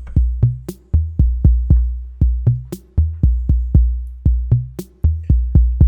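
Arturia DrumBrute analog drum machine playing a steady beat of kick, snare and toms, with sharp hits and deep kick decays about twice a second. The snare is sent through the StudioLive mixer's built-in large-club reverb.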